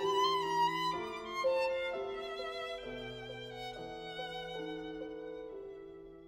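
Slow instrumental background music: a held, wavering melody line over sustained lower notes, getting quieter toward the end.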